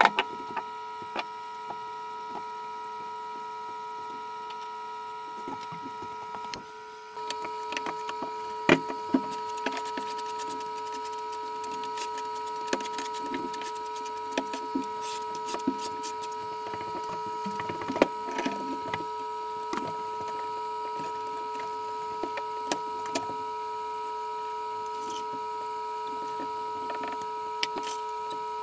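Scattered knocks, clicks and scrapes of hand tile-setting: a small trowel spreading and scraping thinset mortar over Schluter Ditra membrane, and tools and tiles being handled. A steady hum runs underneath. The scraping and knocking gets busier after about seven seconds.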